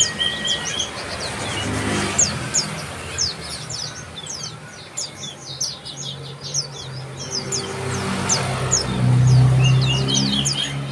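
Bar-winged prinias calling: a quick, irregular run of high, thin, downward-sliding chips from several birds, with a few short warbling notes near the start and near the end. A low motor hum swells in the background in the second half and is loudest around nine seconds in.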